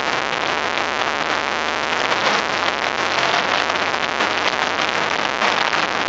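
Loud live rock band overloading a phone microphone: a dense, distorted wash of noise in which no tune can be picked out.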